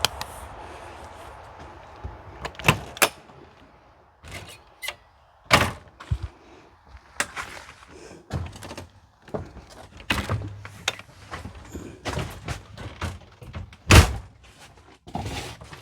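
A series of thunks and knocks as doors are opened and shut, the loudest thunk about fourteen seconds in.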